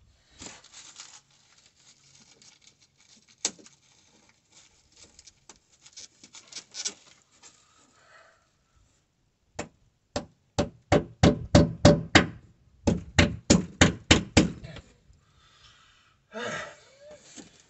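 Rustling and crinkling of an insulation sheet being pressed up under the floor, then two quick runs of hammer blows, about four a second, nailing it to the floor joists overhead.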